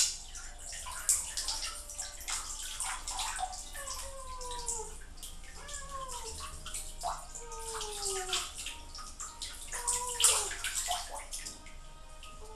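Water splashing and dripping in a half-filled bathtub as a wet cat is lifted out, with the loudest splashes right at the start, about a second in and about ten seconds in. Several short falling tones come and go every couple of seconds.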